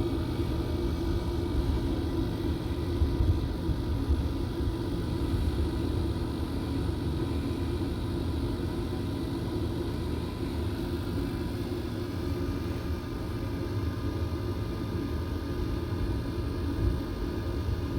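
Daikin gas-fired rooftop HVAC unit running with its burners lit and its inducer and main blower on: a steady low rumble with a faint steady hum. It is running normally now that the pressure-switch fault has been cleared.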